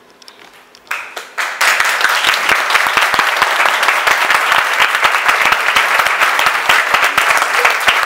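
Theatre audience applauding: a few claps about a second in, swelling within a moment into full, dense applause that keeps going.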